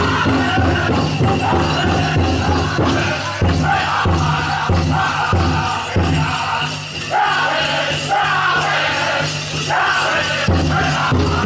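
Powwow drum group singing a chicken dance song together over a steady beat on a big drum, with the jingling of the dancers' leg bells.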